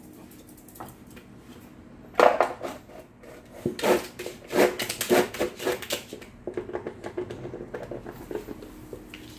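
Yellow plastic dog bowl knocking and scraping on the floor as a small dog drops it and pushes it about with its nose and paw: one sharp knock about two seconds in, a run of loud clattering knocks a little later, then lighter rapid taps.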